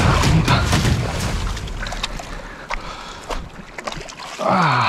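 Shallow surf washing and splashing over a rocky reef edge, loudest in the first second and then easing off, with a few sharp clicks and knocks as a hooked fish is brought in over the rocks. A short falling voice sound comes near the end.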